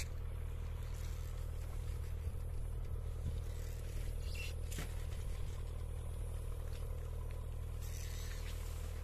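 A steady low engine drone runs throughout. A few brief scrapes and knocks come through about halfway in and again near the end.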